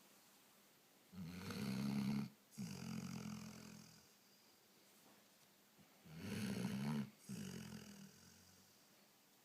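Snoring: two slow breath cycles about five seconds apart, each a loud rasping snore, a brief break, then a softer one.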